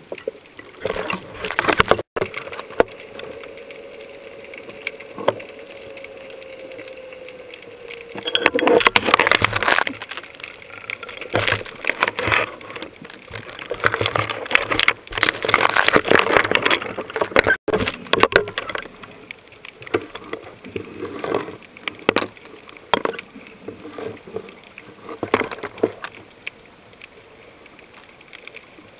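Water heard through an underwater camera: many sharp crackling clicks, with two longer bursts of rushing, bubbling water. A faint steady hum drops slowly in pitch over several seconds early on.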